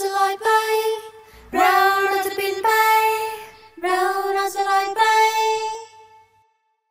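Female voices singing a cappella: the closing phrase of a Thai pop song, sung as a few long held notes. The last note fades out about six seconds in.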